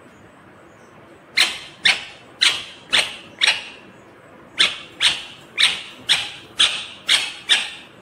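Indian ringneck parakeet giving a run of loud, harsh screeching calls, about two a second: five, a brief pause, then seven more.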